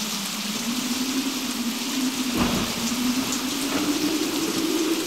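Rain-and-thunder sound effect: steady rain with a low rumble of thunder about two and a half seconds in, under a low droning tone that slowly rises in pitch.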